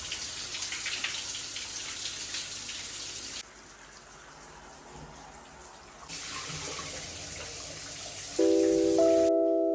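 Running water, a steady rushing hiss that drops away abruptly about three and a half seconds in and comes back about two and a half seconds later. Sustained keyboard chords come in near the end.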